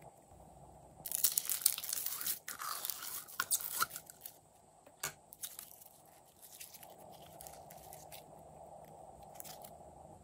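Green glitter slime pulled out of its tub and stretched by hand. There is a dense stretch of crackling for about three seconds, then scattered small pops and clicks as the slime is worked and set down.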